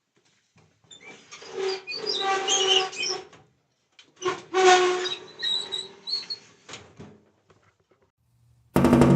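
Metal scraping with a squeal, in two passes of two to three seconds each. Near the end, a loud metal strike rings out with a long, slowly fading ring.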